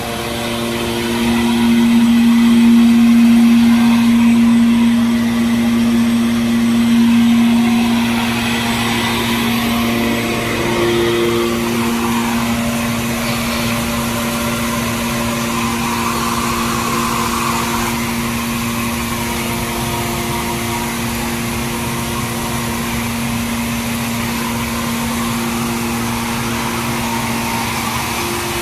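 Mini rice mill plant machinery running: electric motors and a belt-driven centrifugal blower make a steady hum with a held low drone, a little louder for the first several seconds.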